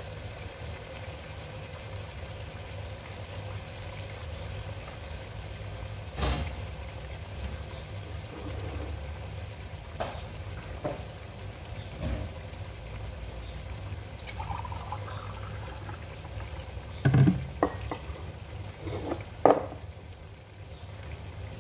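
Pot of hamour fish stew sizzling and simmering on the stove, a steady low hiss, with a few clicks and knocks of kitchen utensils, the loudest near the end.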